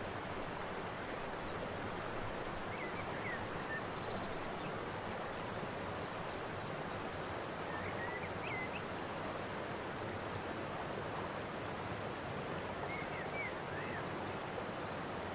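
Steady outdoor background rush, like light wind over open water, with faint bird chirps a few times.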